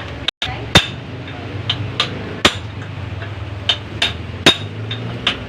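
Hammer blows on metal: about eight sharp, ringing strikes at an uneven pace, the loudest about a second in.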